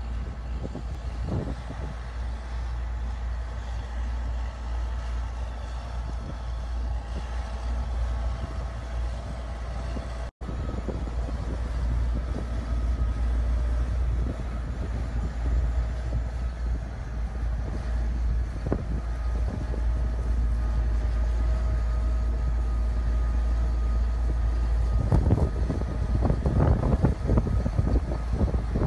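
Large tractor's diesel engine running steadily with a deep rumble and a steady whine while towing a Stara seed planter. It cuts out for an instant about ten seconds in, and the sound grows louder and gustier near the end as the planter is unfolded.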